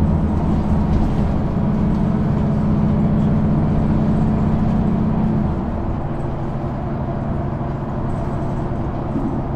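Mercedes-Benz O530 G articulated bus's diesel engine running steadily under load. A little past halfway its note drops lower and becomes quieter.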